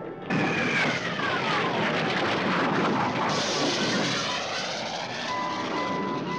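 Cartoon jet-engine roar cutting in suddenly, with a whistle gliding down in pitch over the first couple of seconds; about three seconds in the roar gets louder and brighter.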